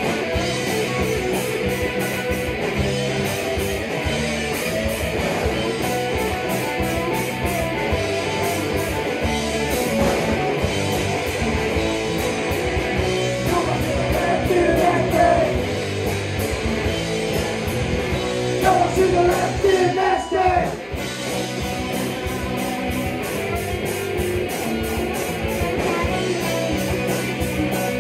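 Rock band rehearsing live: electric guitars playing over a steady beat, with a voice singing a couple of lines in the middle.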